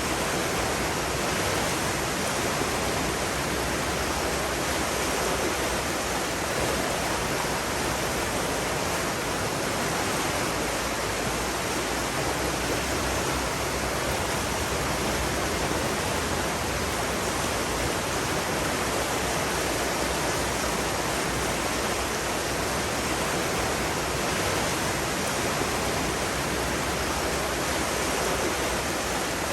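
Steady rushing water, an even, unbroken wash of noise that does not change in level.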